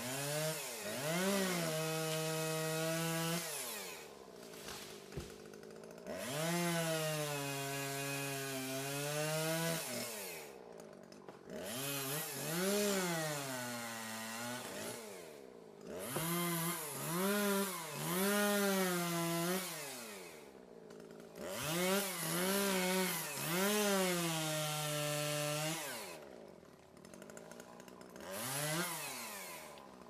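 Chainsaw cutting through a log, throttled up about six times. Each time its pitch rises, holds steady through the cut, then falls away, with short quieter gaps between.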